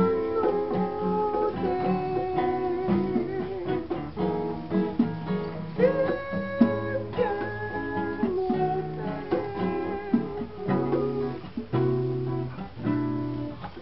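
Acoustic guitars playing an instrumental passage: rhythmic strummed chords under a sustained lead melody whose notes waver and bend.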